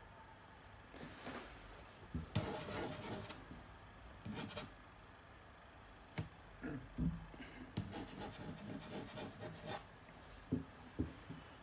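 Hands working on parts of a laboratory analyzer's reaction disk assembly: irregular rubbing and scraping of parts, a sharp click about six seconds in, and two short knocks near the end.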